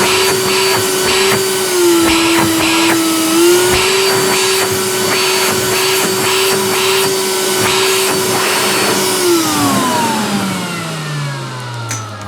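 Makita DVC260 cordless backpack vacuum running with a steady whine, its pitch dipping briefly about two seconds in, then switched off about nine seconds in and winding down with a falling whine. This is the first power-up of a unit sold as non-working, and it shows the motor runs.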